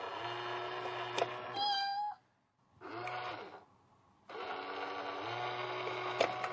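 Battery-powered cat coin-bank toy running its cycle twice, with the toy cat peeking out of the box: a low motor hum under a long electronic meow sound, a sharp click, then a short high electronic tone. A brief meow-like sound comes between the two cycles.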